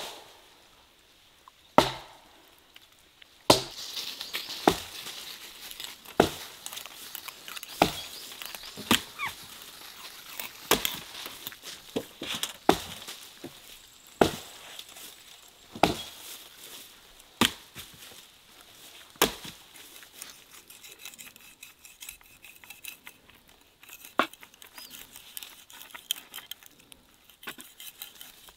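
Sharp chopping strikes, about one every second and a half for much of the time, then quieter fine scraping and ticking as a knife cuts into a whole sturgeon on a wooden board.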